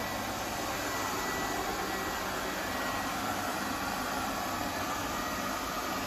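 Lefant M210B robot vacuum cleaner running across a hard floor: a steady whirr from its suction fan and brushes, with a faint thin high whine.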